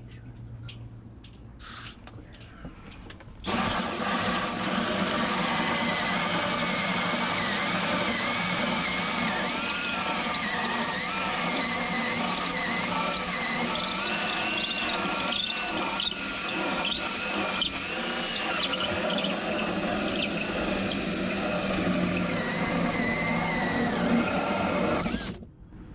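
Cordless DeWalt drill driving a hole saw through a boat's steering pedestal. It starts about three and a half seconds in and runs steadily for some twenty seconds, with a wavering high whine from the saw cutting, then stops abruptly near the end.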